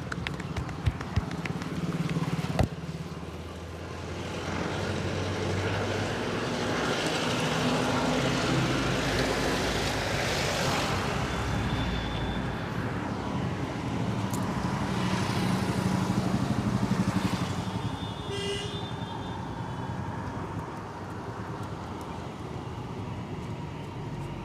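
Street traffic passing, the rush of vehicles swelling and fading twice, with a short horn toot about three quarters of the way through. A few sharp clicks sound in the first few seconds.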